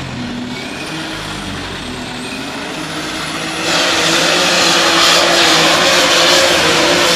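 Unlimited super stock pulling tractor engine running hooked to the sled, then going to full throttle about three and a half seconds in as the tractor launches into its pull, much louder and steady from then on.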